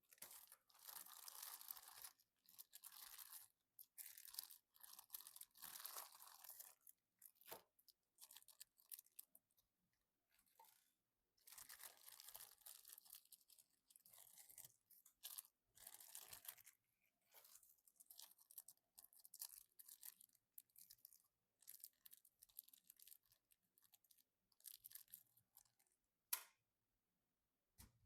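Faint rustling, scraping and tearing handling noises from parts and packaging being worked by hand, coming in short bursts with pauses, and one sharp click near the end.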